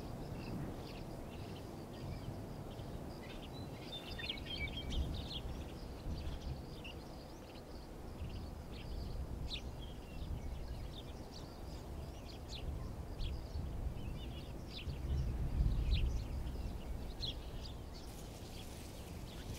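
Woodland ambience: small birds give scattered short chirps over a steady low rumble.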